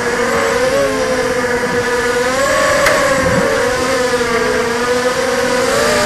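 Brushless motors and KingKong 5040 propellers of a ZMR250 racing quadcopter on a 4S battery, heard through its onboard camera: a steady high whine with overtones that rises and dips slightly with throttle changes. A brief click sounds about three seconds in.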